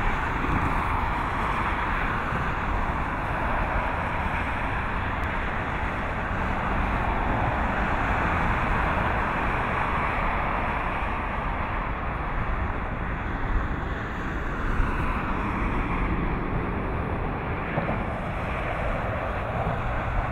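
Distant jet airliner engines running: a steady rushing noise, with low wind rumble on the microphone underneath.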